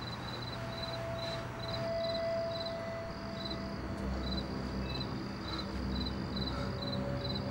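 Crickets chirping, short even chirps about twice a second, over a low steady drone.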